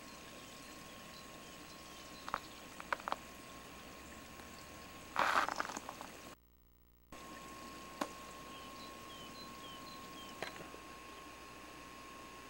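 Quiet camcorder ambience: a steady hiss under a faint constant high hum, with a few light handling clicks and a brief scuffing noise about five seconds in. A gap of near silence follows briefly at a cut between shots.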